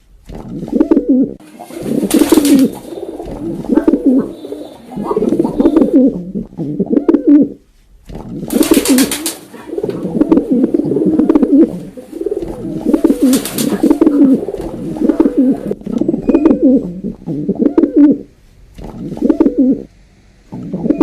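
Pigeon cooing: repeated low, rolling coos of about a second each, one after another with short gaps. Three brief bursts of hiss-like noise come in, about two seconds in, near nine seconds and near thirteen seconds.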